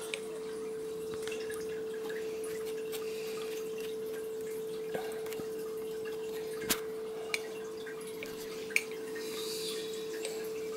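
A steady humming tone, with a few light clicks and faint scraping of a spoon spreading jam on sponge circles on a metal baking tray; the sharpest clicks come about two-thirds of the way in.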